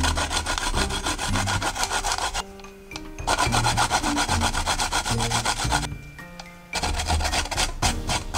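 Garlic cloves grated back and forth on a clear grating plate: a rapid scraping in three bouts, with short breaks about two and a half and six seconds in. Soft background music plays underneath.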